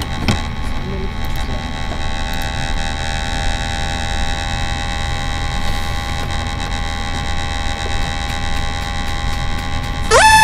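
Steady electrical hum and hiss with faint, fixed high whining tones. Near the end, a loud warning tone from the eNetAlert earthquake early-warning software sweeps sharply upward and holds.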